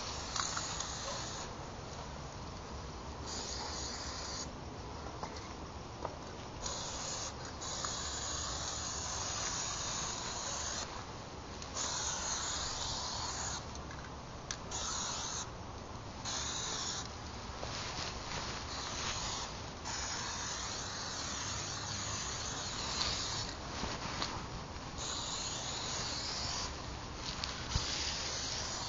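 Aerosol spray paint can hissing in repeated bursts, each lasting from about half a second to a few seconds, with short pauses between them.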